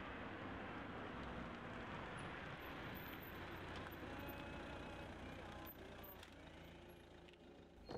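A car approaching and drawing up beside a hitchhiker, faint steady engine and tyre noise that dies down over the last couple of seconds as it slows.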